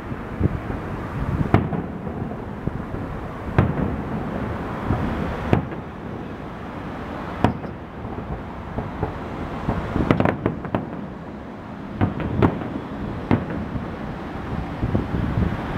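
Aerial firework shells bursting: sharp bangs every second or two, irregularly spaced, over a continuous low rumble from the display.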